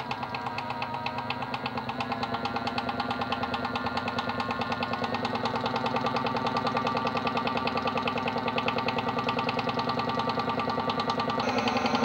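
Modified toy washing machine running, its small motor turning the drum with a rapid, even pulsing rattle that grows gradually louder, the tone shifting higher near the end.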